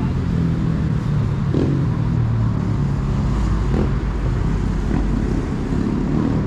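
Street traffic: car and motorcycle engines running close by, with cars driving past.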